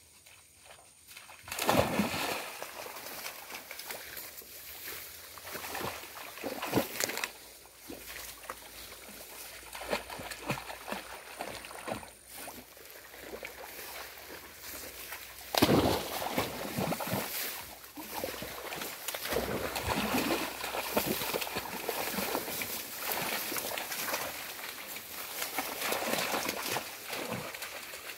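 Hunting dogs splashing through a shallow muddy creek and pushing through tall grass and reeds, with loud splashes a couple of seconds in and again about halfway through, then continuous sloshing and rustling.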